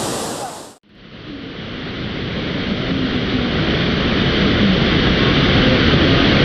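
Full-flowing waterfall rushing, fading out under a second in; after a short gap a steady rushing noise fades in and holds.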